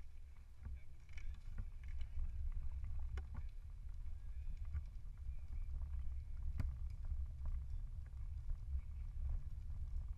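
Low rumble of a recumbent tandem bicycle rolling along a path, with wind on the microphone and a few sharp clicks.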